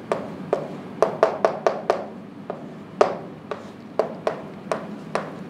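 Chalk tapping on a chalkboard as a row of digits is written: an irregular string of short, sharp taps, about three a second.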